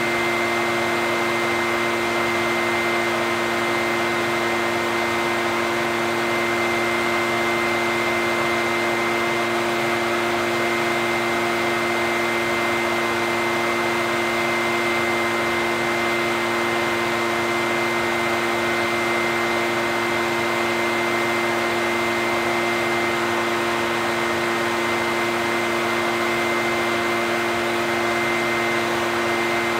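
Echo backpack leaf blower's two-stroke engine running at a constant speed: a steady rush of air over an even engine and fan hum whose pitch does not change.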